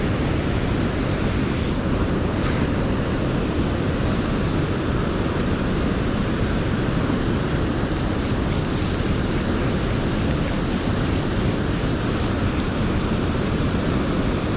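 Steady rush of river water spilling over a low dam, an even roar with no breaks.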